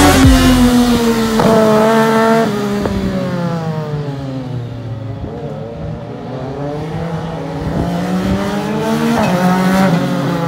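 Legend race car engine at speed, running past at racing revs: the note sinks and fades toward the middle, then climbs and grows louder again as a car comes back toward the fence, with a brief step in pitch about nine seconds in.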